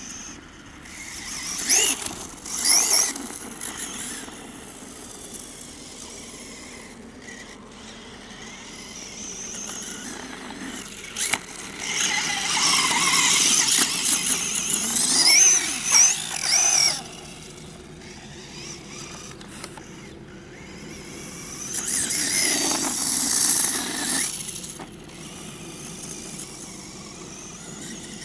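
Electric RC buggy's motor whining, rising and falling in pitch as the throttle is worked, in three loud runs: near the start, for several seconds in the middle, and again later.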